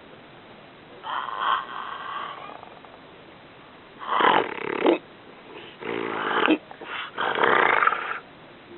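A man snoring heavily and raspingly. There is one long snore about a second in, then three more in close succession from about four seconds in, each lasting about half a second to a second.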